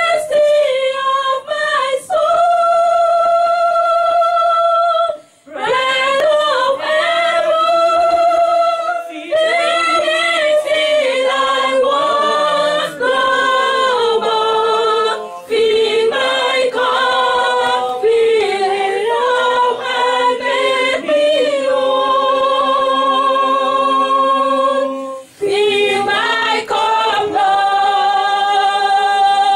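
Unaccompanied singing of a slow worship song, led by a man singing into a microphone, with long held notes. The singing breaks off briefly about 5 seconds in and again near 25 seconds.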